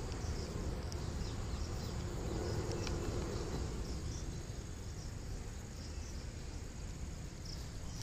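Insects, likely crickets, chirring steadily as a high, continuous buzz, over a low rumble.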